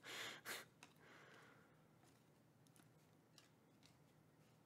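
Near silence: two short soft puffs of noise at the start, then a few faint clicks as a stack of trading cards is thumbed through by hand.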